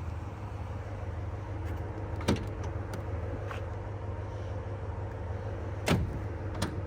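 Inside the cab of a 2023 Ram 1500 Limited on the move: a steady low drone of engine and road noise, broken by two sharp thumps, about two seconds in and about six seconds in, and a lighter one near the end.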